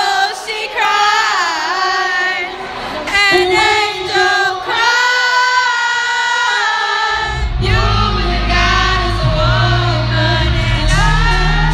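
A pop song with female vocals playing loud over an arena sound system, with the crowd singing along. A heavy bass comes in suddenly about seven seconds in.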